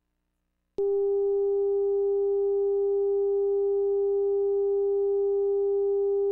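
A steady electronic tone, one unchanging pitch with faint overtones, that starts suddenly about a second in and holds at an even level.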